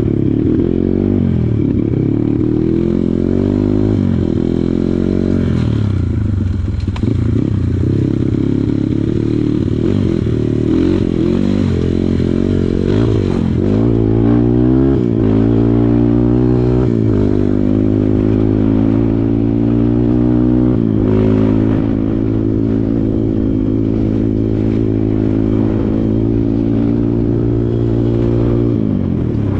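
Kawasaki KLX140 single-cylinder four-stroke dirt bike engine being ridden, revs rising and falling repeatedly with throttle and gear changes, then held fairly steady through most of the second half before dropping near the end.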